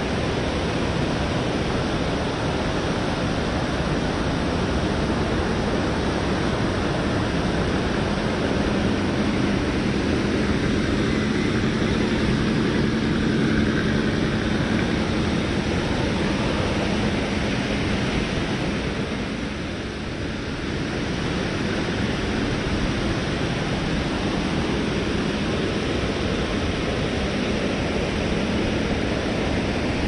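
Steady rushing of a waterfall and fast-flowing river water, with a faint low hum joining in for a few seconds near the middle.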